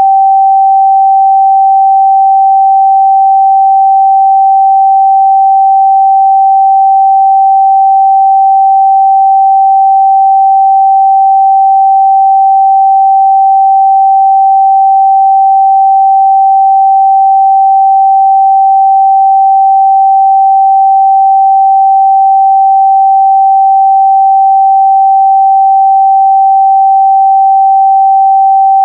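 A steady, loud 777 Hz sine-wave test tone, one pure pitch held without change.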